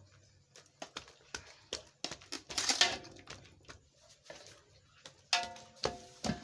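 Scattered knocks and clinks of kitchen utensils and cookware being handled, with a short scraping rustle about two and a half seconds in and a clatter of pots with a brief ringing near the end.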